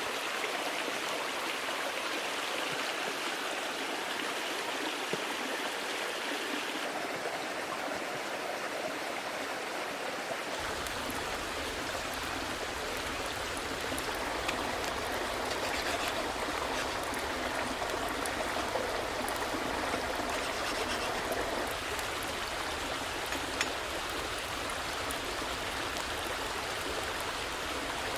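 Small creek babbling steadily over stones, with a few faint ticks on top.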